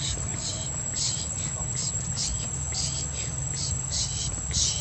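Insects chirping in short high-pitched pulses, about two a second, over a low rumble.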